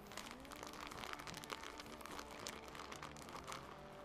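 Faint crinkling and crackling of a bag of brown sugar as it is shaken and poured into a glass jug, in many small irregular crackles.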